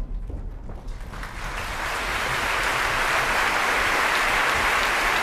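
Audience applause in a theatre: the clapping swells over about the first two seconds and then holds steady.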